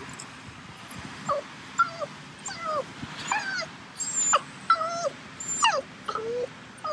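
Cavalier King Charles Spaniel whining: a run of about ten short, high whines, each falling in pitch, starting about a second in. The dog is whining for its owner, who is out of sight.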